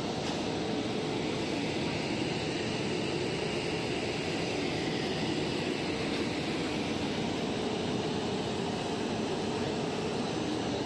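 Monofilament drawing roller machine running, its rows of chrome rollers turning as they draw plastic filaments, making a steady, even machine noise with a faint hum.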